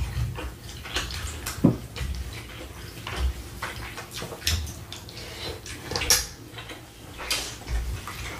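Close-miked chewing and eating mouth sounds, wet smacks at an irregular pace, mixed with scattered clicks of utensils against dishes.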